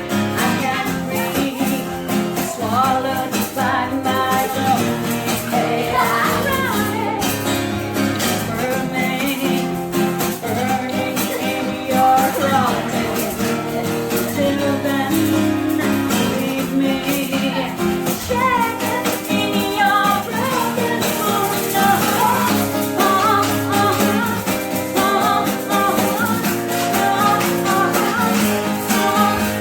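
Live acoustic performance of a song: a woman singing a slow, wavering melody over guitar accompaniment.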